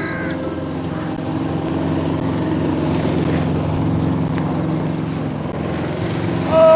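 An engine running steadily with a low, even drone that swells a little toward the middle.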